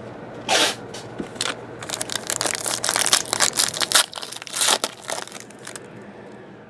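A trading-card pack wrapper being crinkled and opened by hand, a dense run of crackles that dies away near the end.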